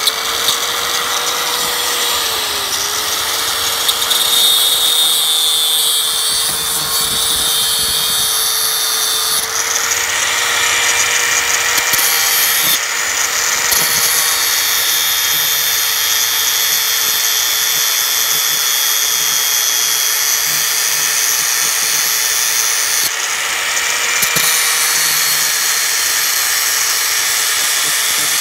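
Angle grinder running at full speed and grinding metal, throwing sparks. Its steady motor whine dips briefly about two and a half seconds in, and the harsh grinding hiss grows louder about ten seconds in.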